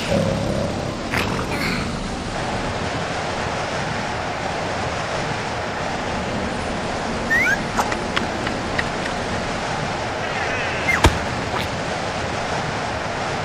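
Storm-wind sound effect of a typhoon: a steady rushing noise. A couple of brief high rising squeaks come through about seven and eleven seconds in.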